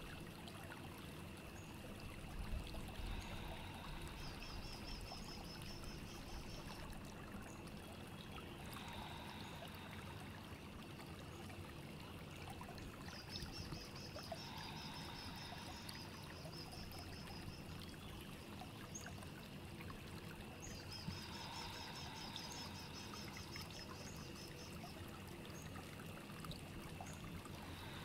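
Steady trickling of running water, with a bird singing a high trilled song three times, each phrase lasting a few seconds.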